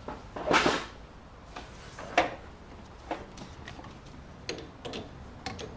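Tools and metal parts being handled during a front shock absorber install: a short scraping rustle about half a second in, a sharp click a little after two seconds, then several lighter knocks and clinks.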